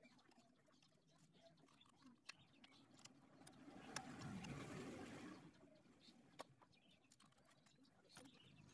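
Near silence. A few faint clicks and a soft rustling swell about four seconds in, from hands handling parts at an open motorcycle engine case.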